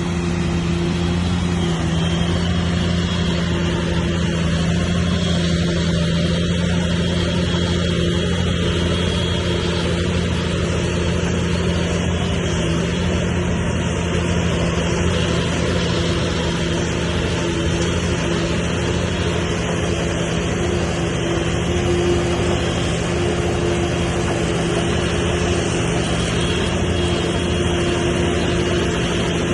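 Heavy diesel engine of earthmoving machinery running at a steady speed, its pitch holding constant throughout.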